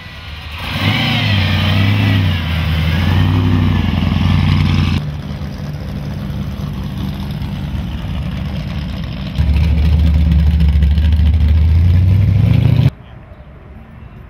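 Hot rod engines with loud exhausts running as the cars drive off, in short clips cut together. The pitch rises and falls over the first few seconds as one revs. The loudest, lowest rumble comes near the end and cuts off suddenly.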